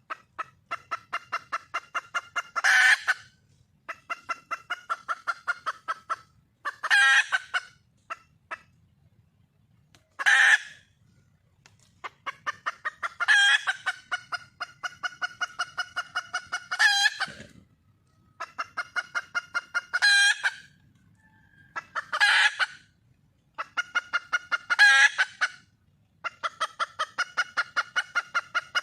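Red junglefowl hen calling for a cock: bouts of rapid clucks, about six or seven a second, each bout broken by a louder, longer squawk, repeating every two to three seconds.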